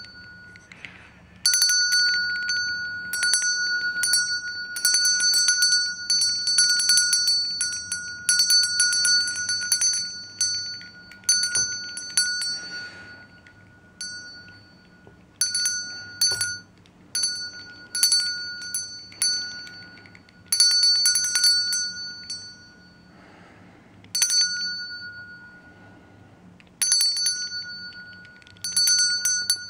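Small hand bell rung in bursts of rapid clapper strikes, giving one bright high ringing pitch. The longest burst runs about ten seconds, then shorter shakes follow with pauses in which the ring dies away.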